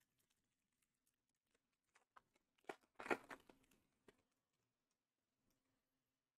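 Foil trading-card booster pack being torn open by hand: a few faint, short crinkles and tears about two to four seconds in, otherwise near silence.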